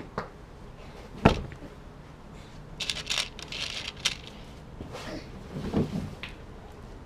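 A hard knock about a second in as a cordless drill is set down on the table, then small metal screws rattling and clicking in a plastic box as a handful is picked out, followed by a few lighter handling knocks.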